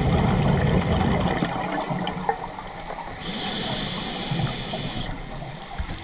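Scuba regulator breathing heard underwater: a bubbling, gurgling rush of exhaled air, then a steady hiss from about three seconds in that cuts off sharply about two seconds later.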